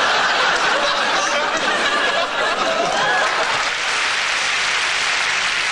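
Studio audience laughing and applauding after a punchline: a loud, steady wash of clapping with laughs mixed in.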